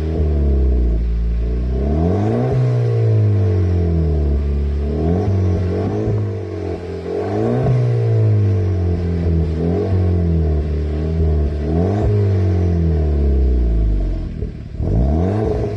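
Volkswagen Golf Mk5 TSI fitted with a 3-inch exhaust and a Twister Sport duplex rear silencer with four tailpipes, revved while standing still. The note rises and falls back about half a dozen times, settles to idle briefly near the end, then rises once more.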